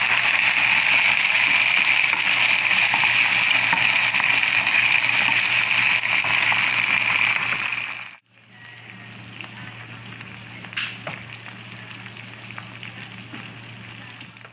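Canned baked beans in sauce sizzling in a hot oiled pan with onion. About eight seconds in the sound cuts off and returns as a quieter steady sizzle as the beans simmer.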